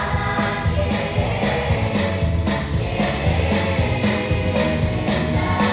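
Children's choir singing together over an instrumental backing with a strong bass line and a steady beat of about three strokes a second.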